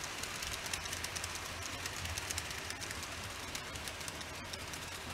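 N-gauge model train coaches rolling along plastic track: a steady rapid clicking of small wheels over the rails, with a low even hum underneath.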